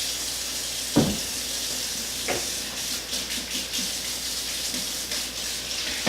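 Kitchen tap running steadily, with two short knocks about a second and two seconds in.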